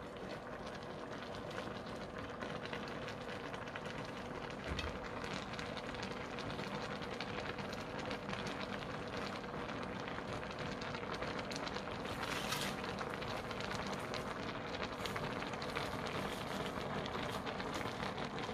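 Bulgogi-mushroom hot pot broth simmering in a wide stainless-steel pot, a steady fizzing crackle of bubbles. There is a brief soft knock about five seconds in and a short hiss around twelve seconds.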